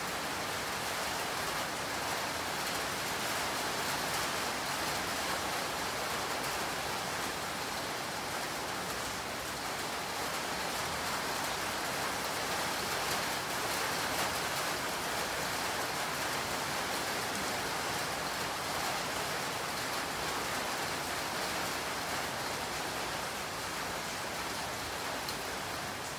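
Steady rain falling, an even hiss with no change throughout.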